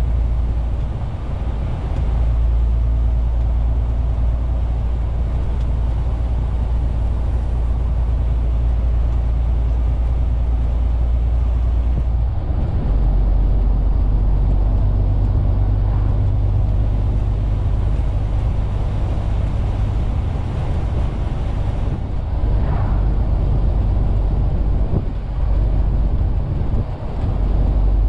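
MAN TGX 470 truck's six-cylinder diesel engine running while driving, heard from inside the cab as a steady low drone with road noise; the drone's note shifts about halfway through.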